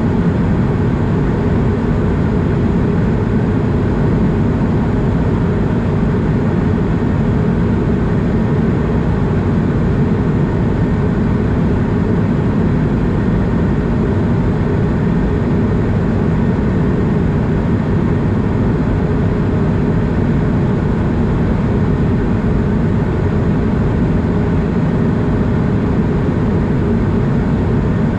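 Steady low cabin drone of an Airbus A220 in flight, heard inside the cabin at a window seat: rushing airflow over the fuselage blended with its Pratt & Whitney PW1500G geared turbofans.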